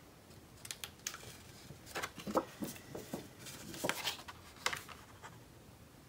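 Paper and craft supplies being handled on a work table: a scattering of light rustles and small taps, busiest in the middle.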